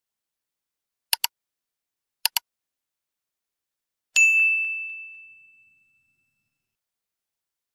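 Sound effects for a subscribe-button animation: two quick mouse-click sounds about a second apart, each a tight double tick, then a single bright notification-bell ding that rings out and fades over about a second and a half.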